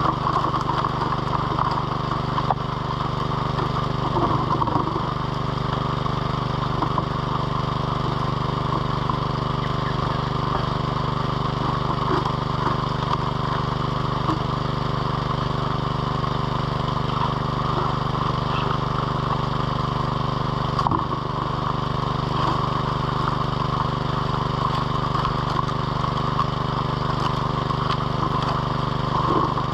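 Small petrol water pump engine running steadily at a constant speed, pumping water to a high banker sluice.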